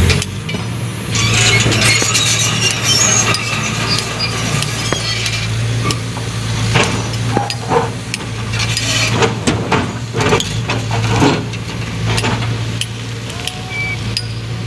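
Sumitomo hydraulic excavator's diesel engine running steadily under load while its bucket pulls rock and soil down from a cut face. Frequent clinks and knocks of stones and clods falling and scraping.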